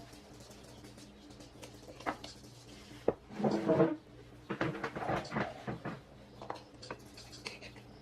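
Kitchen handling noise: scattered knocks and clatter, with a louder spell of rattling about three to four seconds in and more shortly after, over a steady low hum.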